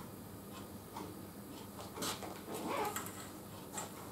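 Light, scattered clicks and taps of small parts of a saw blade sharpener being handled and fitted.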